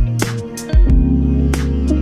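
Background music: held bass and melodic notes with drum hits.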